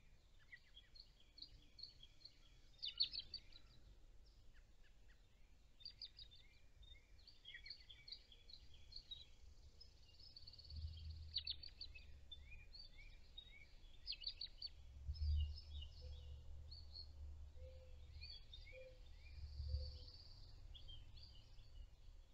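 Small songbirds chirping and singing in many short, quick notes throughout, some notes sweeping downward. A faint low rumble swells a few times in the second half.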